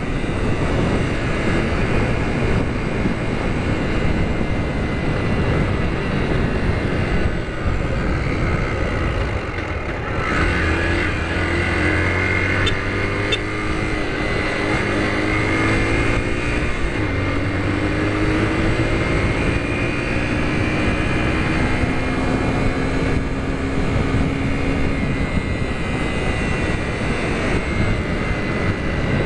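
Low-displacement Yamaha motorcycle engine running under way at road speed, with wind rushing over the microphone. From about ten seconds in, the engine note climbs in a few gliding stretches as the bike accelerates.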